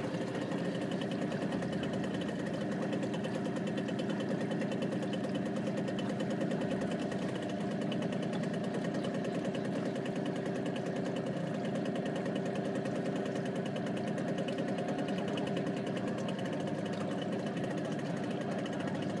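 Small boat's engine running steadily while the boat moves across open water.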